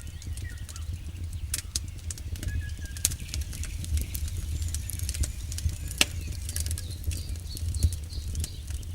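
Wood campfire burning: firewood crackling with irregular sharp pops, over a steady low rumble of the flames.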